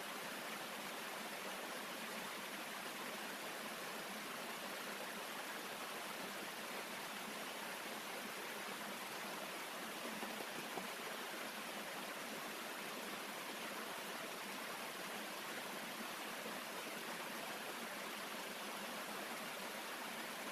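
Small waterfall and stream cascading over rocks: a steady rushing of water.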